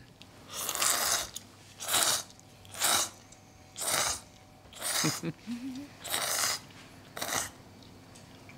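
A person slurping ramen noodles, seven loud hissing slurps about a second apart, with a brief low murmur about five seconds in.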